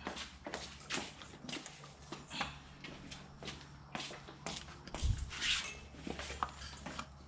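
Light clicks, knocks and rustles of a plastic oil funnel and oil bottle being handled and set in place at the engine's oil filler, with a dull thump about five seconds in.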